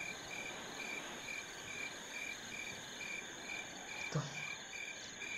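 Night-time crickets chirping: a steady high hum with a short, even chirp repeating about twice a second. A brief low sound comes about four seconds in.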